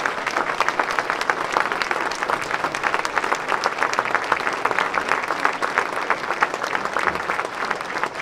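Audience applauding: dense, overlapping hand claps from many people, holding steady throughout.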